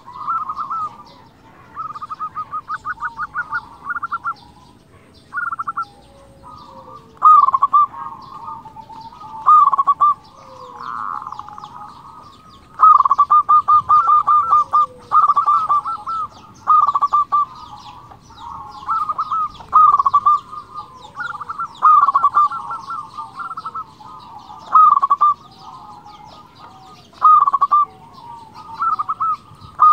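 Zebra doves (perkutut) cooing. Phrases of rapid staccato notes are repeated every two seconds or so, with softer cooing going on between them.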